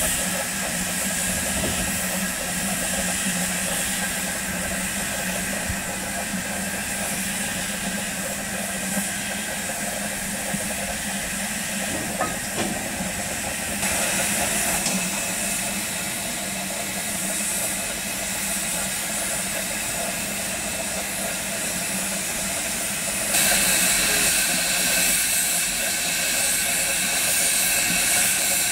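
BR Standard Class 4 2-6-0 steam locomotive standing at a platform, letting off a steady hiss of steam over a constant low hum. The hiss gets louder about halfway through and again, more strongly, near the end.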